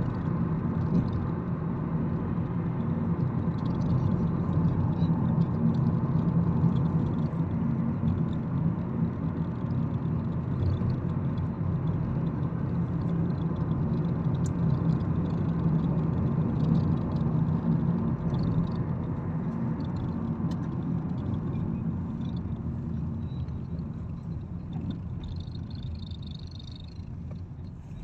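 Car driving on a road, heard from inside the cabin: a steady low rumble of engine and tyre noise that grows quieter over the last few seconds as the car slows.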